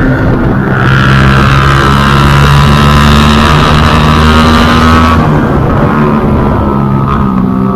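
Yamaha R15 V2's single-cylinder four-stroke engine running while riding, with wind rushing over the microphone. The engine note drops about five seconds in and picks up again near the end.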